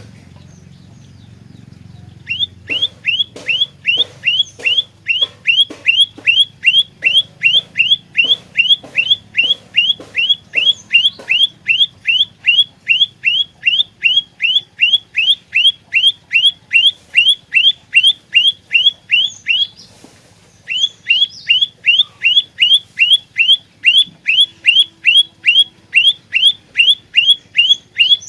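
Prenjak lumut song: a long run of identical sharp notes, each sliding down in pitch, about three a second. It starts about two seconds in and breaks off briefly a little before the end, then carries on.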